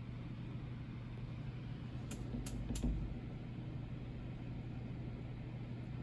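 Steady hum of a sterile compounding hood's blower fan, with a few faint clicks about two to three seconds in.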